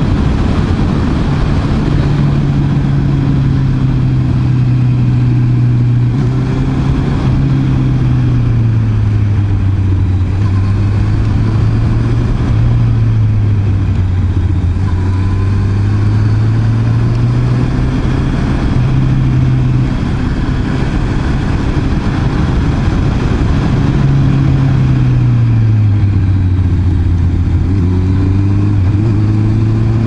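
Honda CB650R's inline-four engine running on the move. Its note falls and rises several times, fades for a few seconds past the middle and then comes back, over steady wind and road noise.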